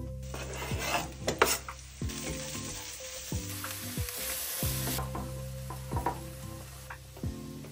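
Chopped vegetables and chorizo sizzling in a frying pan and stirred with a wooden spoon. The hiss swells for a second or so near the middle, and a few sharp knocks of a knife or spoon sound early on, over soft background music.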